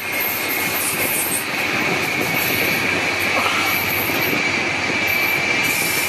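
Passenger train running along the line, heard from inside the carriage: a steady rush and rumble of wheels on rail, with a thin, high-pitched wheel squeal holding steady over it.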